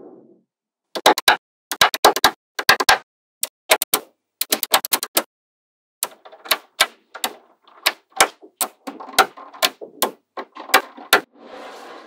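Small magnetic balls clicking as they snap together while strips of them are pressed onto a wall of magnet balls: quick clusters of sharp clicks with short gaps between them.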